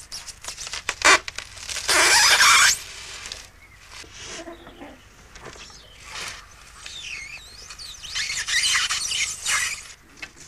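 Sheets of expanded polystyrene squeaking and scraping as a giant needle and thread are worked through them. The sound comes in irregular rubs and clicks, with loud squealing scrapes about two seconds in and again near the end, and thinner wavering squeaks between them.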